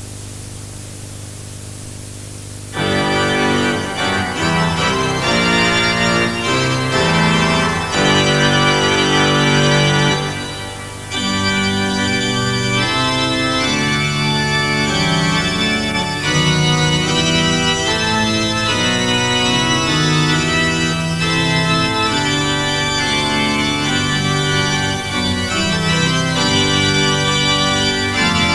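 A steady low hum and tape hiss, then organ music begins about three seconds in and plays on in sustained chords, dipping briefly around the ten-second mark before continuing.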